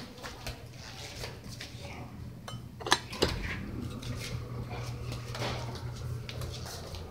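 Scattered metallic clinks with two sharp clacks about three seconds in, over a steady low hum.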